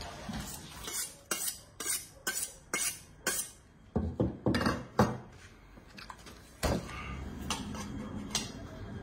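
Metal utensils clinking and scraping: a run of sharp strokes about twice a second, then a few irregular ones, and a louder knock about two-thirds of the way through.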